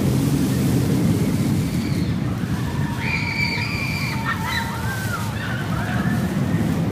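Suspended looping roller coaster train running along its steel track with a steady rumble. Riders give a held high scream about three seconds in, then a few shorter wavering cries.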